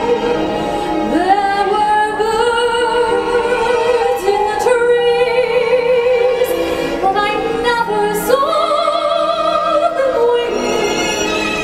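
Show-tune singing with long held notes sung with vibrato, over instrumental accompaniment.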